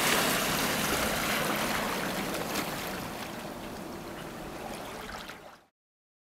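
Water rushing and splashing along a moving boat's hull, with no motor heard over it. It fades gradually and cuts off abruptly about five and a half seconds in.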